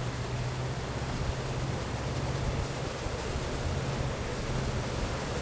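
Off-road truck engine running steadily at low revs while crawling a trail: a low, even drone under a steady hiss of noise.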